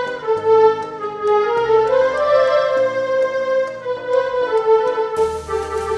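Casio Casiotone mini keyboard played through a connected speaker: a stepping melody of held notes over the keyboard's built-in rhythm, with evenly spaced percussion ticks and a repeating bass line.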